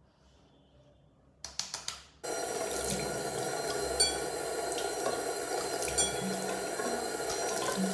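A few quick clicks, then a water tap runs steadily into a sink from about two seconds in, with splashes as water is brought up to the face, twice standing out.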